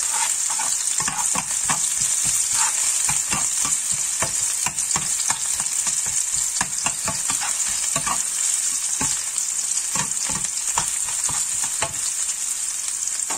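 Chopped red onions sizzling steadily in hot oil in a frying pan, with a cooking utensil scraping and knocking against the pan many times at irregular intervals as they are stirred.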